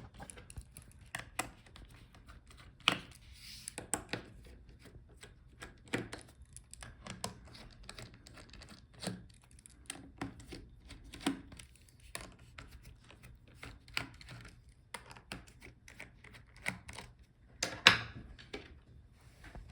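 Irregular small clicks and taps of a screwdriver working the bottom screws on a laptop's plastic base cover, with a louder knock about three seconds in and another near the end.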